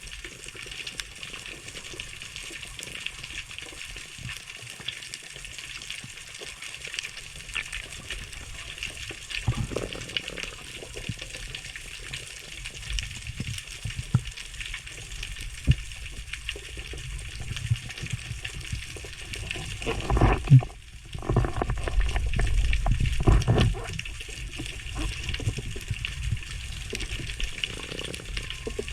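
Sea water heard through a spearfisher's diving camera: a steady crackling hiss of fine clicks, with low rushing water surges that swell about two-thirds of the way through, including one sharp thump.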